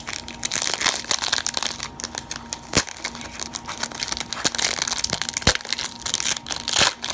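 Baseball card pack wrappers being torn open and crinkled by hand, a busy crackling with sharp snaps throughout.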